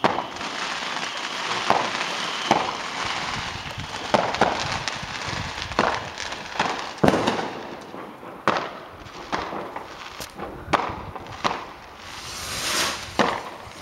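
Fireworks going off: a dozen or so sharp bangs at irregular intervals over continuous crackling, with a hissing swell near the end.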